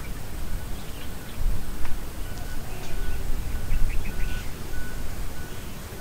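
Outdoor ambience: an uneven low rumble of wind on the microphone, with scattered short bird chirps and a faint high note repeating about twice a second.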